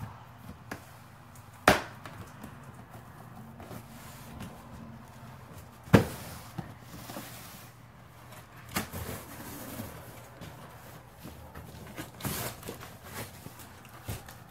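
Large cardboard toy box being handled and opened: scattered knocks and handling noises on the cardboard, with two sharp, loud knocks, one near two seconds in and one near six.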